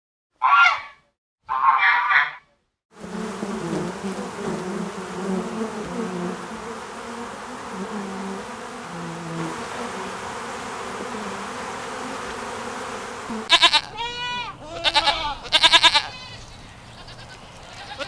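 A duck gives two short, loud calls. Then honeybees at the hive buzz steadily for about ten seconds. A goat then bleats several times near the end.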